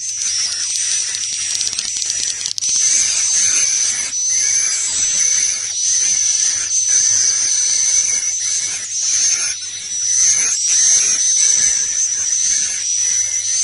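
Swiftlet roosting call used to lure swiftlets into a swiftlet house: dense, continuous twittering and chattering of many edible-nest swiftlets, with rapid looping chirps and clicks over a steady high whistling tone.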